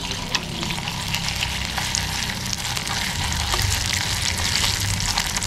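Chicken pieces sizzling and crackling as they fry in hot oil in a wok, stirred with a metal slotted spoon.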